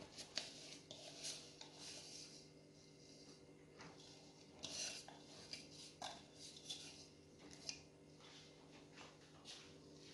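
Gloved hands scooping and working a crumbly ground-almond filling in a glass bowl: faint, irregular rustles and scrapes against the glass.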